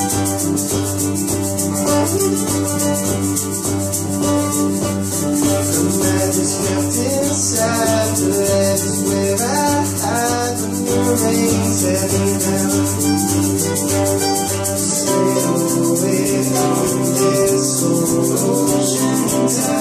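Live acoustic band music: strummed acoustic guitars carry sustained chords over a fast, even rattling rhythm. The chords change about fifteen seconds in.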